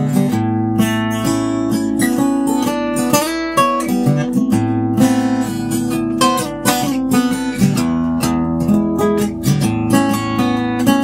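X-braced Harmony Sovereign H1204 acoustic guitar being played, a continuous run of plucked notes and chords.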